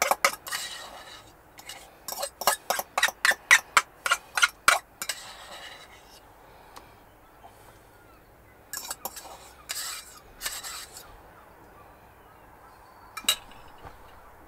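A spoon scraping and clinking against a bowl while thick egg-and-cheese paste is spooned out. There is a quick run of about a dozen clinks some two seconds in, then a few scattered clinks.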